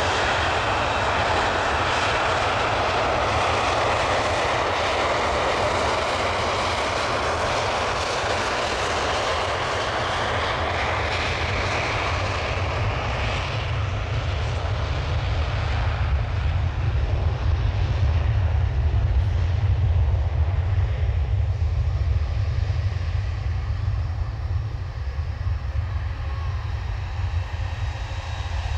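Airliner engine noise on approach to land: a continuous rushing roar. The higher hiss fades through the second half while a low rumble grows stronger.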